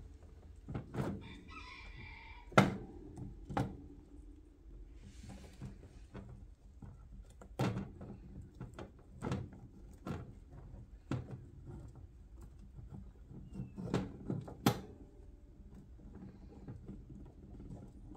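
Hamsters scuffling over a carrot in a wire cage: sharp knocks and clicks scattered throughout, the loudest a few seconds in, as the wire cage and wheel are bumped. A short burst of high squeaking chatter about two seconds in.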